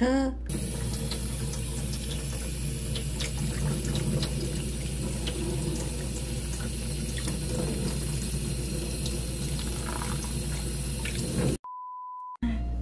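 Water running and splashing in a kitchen sink as soybean sprouts are rinsed and tipped out of a plastic bottle into a stainless mesh strainer, with small clicks throughout. Near the end the water sound cuts off and a steady beep sounds for about a second.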